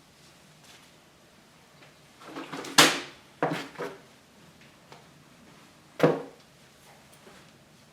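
A few sharp knocks and clatters, like hard objects set down or bumped. A cluster comes about two to four seconds in, the loudest near three seconds, and a single loud knock follows about six seconds in.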